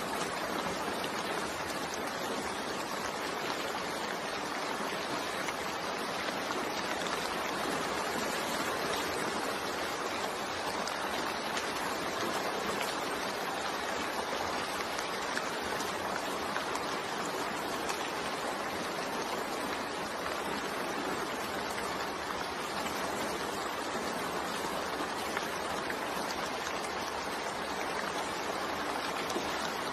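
Steady rain falling, an even unbroken hiss with no thunder claps or other sudden sounds.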